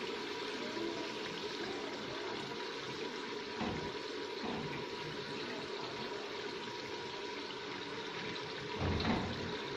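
Steady hiss of curry cooking in an open aluminium pressure cooker on a gas burner, with a few soft knocks as bitter gourd pieces go into the pot; the loudest knock comes about nine seconds in.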